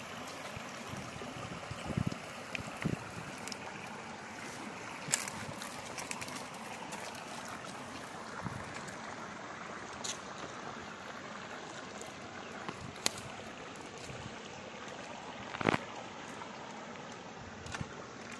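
Fish being worked onto split bamboo skewers by hand: a few scattered light clicks and knocks of the bamboo, over a steady rushing background noise.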